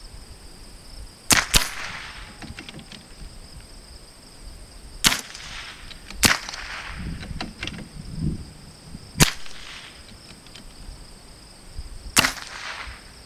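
.22 LR rimfire rifle shots from two bolt-action target rifles, a Savage B22 Precision and a Vudoo V22, firing in turn: six sharp cracks. Two come close together about a second in, then single shots a few seconds apart.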